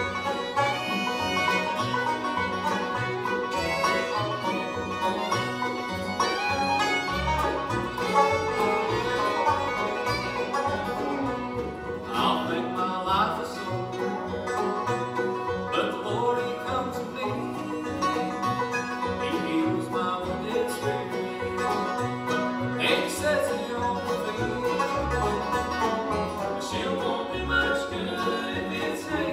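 Acoustic bluegrass band playing an instrumental break: five-string banjo, fiddle, mandolin, acoustic guitar, dobro and upright bass, with the plucked bass keeping a steady beat under the banjo and fiddle lines.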